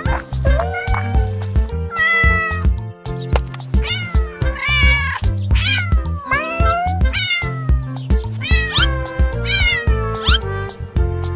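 Cat meows, a run of them one after another with rising and falling pitch, set over music with a steady bass beat.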